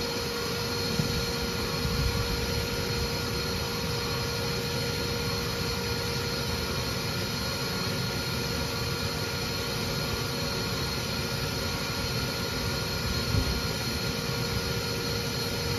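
Bee vacuum running steadily with a constant whine, its hose sucking up bees as they come out of the electrical box after being driven out by repellent.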